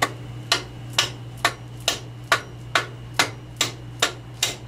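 Dead blow hammer tapping the idler shaft into a Borg-Warner T90 three-speed transmission case: a steady run of sharp, even blows, about two a second, driving the shaft through the case and the cluster gear.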